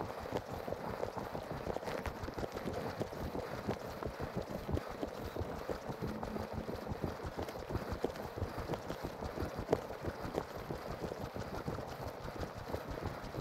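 Footsteps on a lightly snow-covered dirt trail, a steady rhythmic tread.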